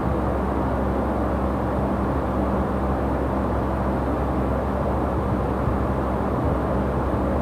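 Steady mechanical hum with an even rushing noise underneath, unchanging throughout, with no clicks or snips.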